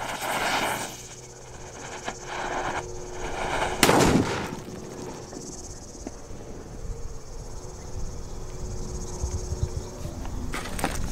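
Bomba Faraônica firecracker: its fuse hisses and sputters for a few seconds, then it goes off with one loud bang about four seconds in. Insects chirp steadily afterwards.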